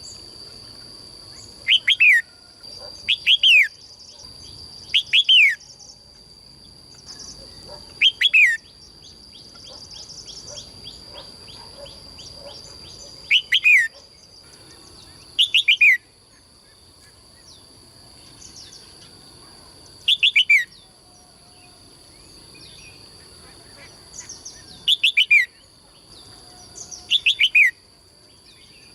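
A songbird repeating a loud, short call that slides down in pitch, nine times at uneven gaps of two to five seconds, with a quick run of ticking notes in the middle, over a steady high-pitched whine.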